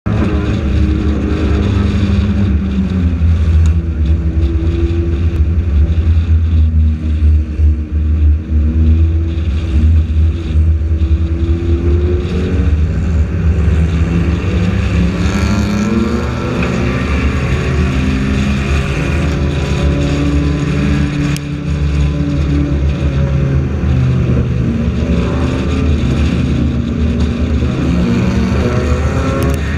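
Compact race car's engine heard through its onboard camera, running hard throughout, its pitch rising and falling again and again as the driver gets on and off the throttle. Other cars' engines are mixed in close by.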